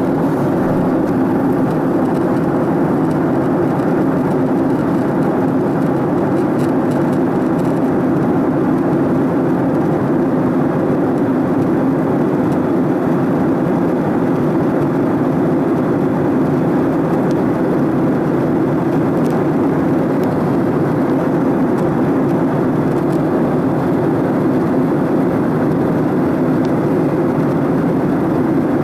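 Steady roar of a jet airliner's engines and rushing air, heard inside the passenger cabin in flight, even and unbroken.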